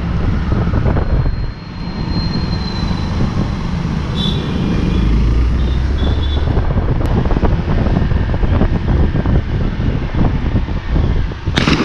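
Hero XPulse 200 motorcycle's single-cylinder engine running steadily during a ride, under heavy wind rumble on the camera mic, with scattered knocks and rattles.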